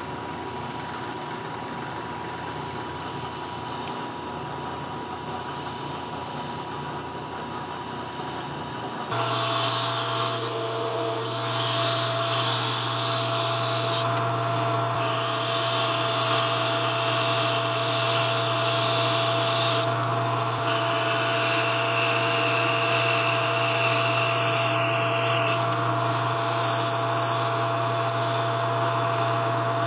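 A milling machine spindle runs steadily as an end mill cuts a flute in a brass part. About nine seconds in, this gives way to a louder metal lathe turning a metal bar. The lathe's motor hum stays steady while the cutting tool adds a hiss that comes and goes with each pass.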